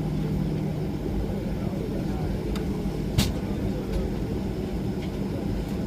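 Steady low cabin rumble inside a Boeing 737-800 airliner, with a faint hum, and one sharp click about three seconds in.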